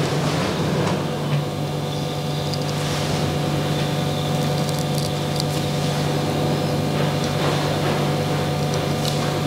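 Steady low mechanical hum, with a few faint scrapes of a straight razor drawn across facial stubble.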